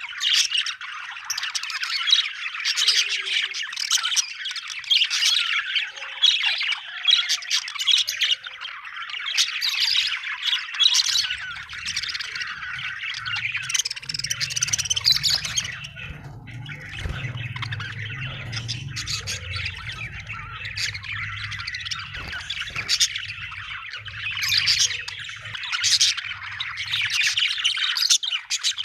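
Budgerigars chirping and chattering continuously, dense overlapping high calls. A low hum joins in from a little before the middle and fades out near the end.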